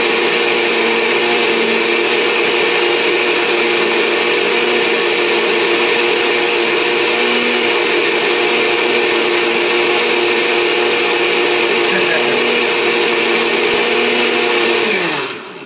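Kitchen blender running steadily, blending chopped guinea grass and basil with water into a green slurry. Near the end it is switched off and the motor winds down, its pitch falling.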